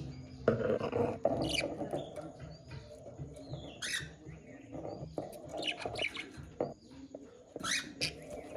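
Budgerigars warbling and chirping together: sharp high chirps every second or two over a soft, continuous chatter.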